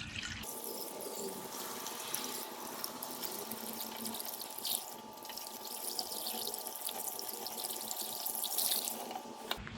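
Antifreeze pouring steadily from a bottle through a funnel into a car's radiator, stopping just before the end.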